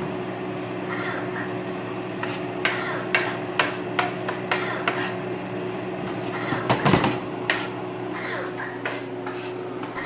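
Plastic spoon stirring in a frying pan of chicken and melted butter, scraping and tapping against the pan in a string of short clicks and knocks, over a steady low hum. A louder cluster of knocks comes about seven seconds in.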